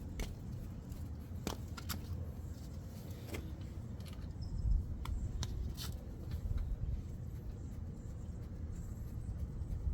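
Scattered light metallic clicks and taps as the 14 mm caliper bolt goes back into the rear brake caliper with a wrench, most of them in the first six seconds. A steady low rumble sits underneath.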